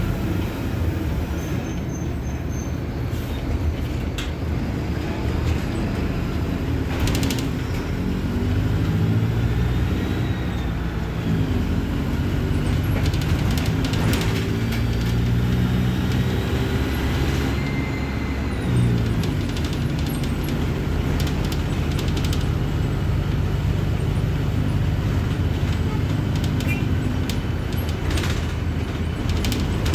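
Mercedes-Benz OF-1721 Bluetec 5 bus's diesel engine running under way. Its note climbs in pitch for several seconds midway, then drops sharply, with clicks and rattles throughout.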